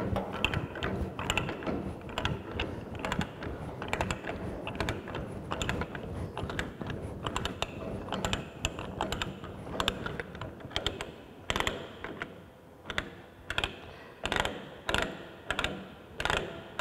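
Manual ratchet pipe threader's die head being turned back off a freshly threaded steel pipe, its pawl clicking over and over. The clicks come thick and irregular at first, then settle to roughly two a second in the second half.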